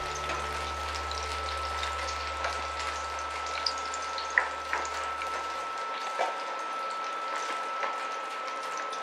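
Chicken pieces frying in shallow oil in a non-stick pan, a steady sizzle with scattered pops and crackles, as the fried pieces are lifted out with a slotted spoon.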